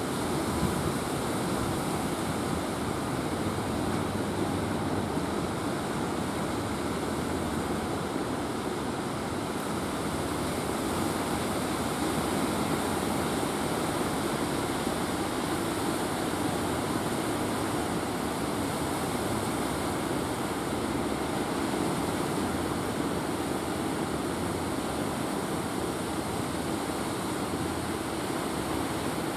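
Steady rush of waves breaking in the surf at a rocky river mouth.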